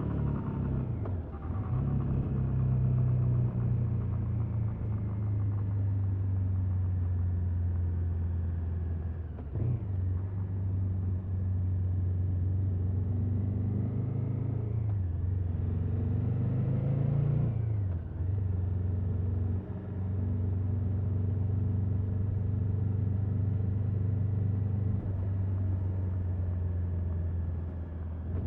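KTM 1290 Super Adventure S's V-twin engine on its stock exhaust, running at a steady moderate pace. The revs climb for a couple of seconds past the halfway point, then drop sharply, with a few other brief dips along the way.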